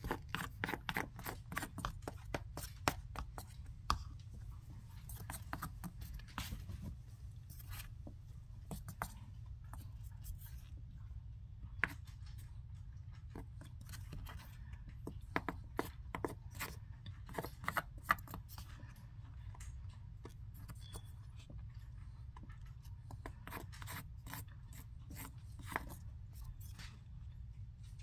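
Packed starch powder crunching and squeaking as a series of sharp, irregular clicks that come in clusters, over a faint steady low hum.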